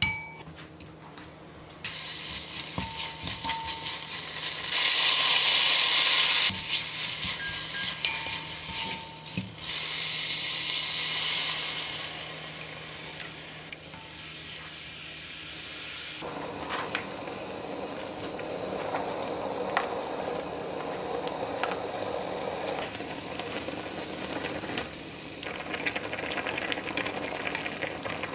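Beef brisket and radish sizzling in a hot black pot while being stirred with a wooden spoon. The sizzle is loud for about ten seconds, then dies away. From about sixteen seconds in, the doenjang stew bubbles steadily as it boils.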